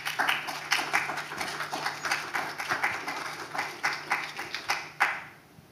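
Audience applauding, a dense patter of claps that dies away about five seconds in.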